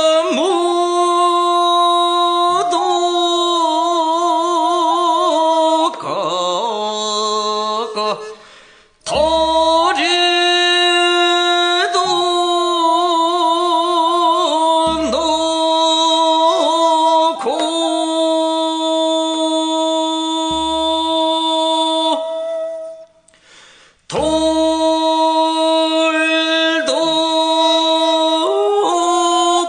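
Male jeongga singer singing sijo in the slow Korean classical vocal style: long held notes with wide vibrato and sliding ornaments, broken by two pauses around 8 and 23 seconds in.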